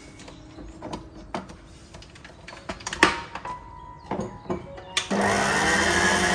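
Clicks and knocks as a dough hook is fitted to a tilt-head stand mixer and its head is lowered onto the metal bowl, the loudest clunk about three seconds in. About five seconds in, the mixer's motor starts and runs steadily, with a low hum and a whine that rises slightly as it comes up to speed.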